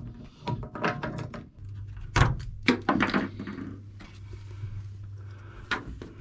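Hands handling a plastic plug and fittings at a hole in a pickup's bed wall: a run of sharp knocks and clicks in the first three seconds and one more near the end. A steady low hum comes in about two seconds in.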